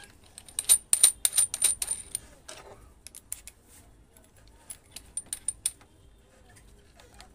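Sharp metallic clicks and clinks of a drill's 13 mm keyed chuck being worked with its chuck key as a bit is fitted, in quick runs about a second in and again near the middle.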